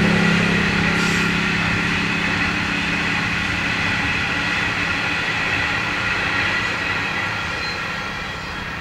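Coal train's hopper wagons rolling past, with several steady high ringing tones over the rumble of the wheels; the sound eases slightly as the last wagons go by.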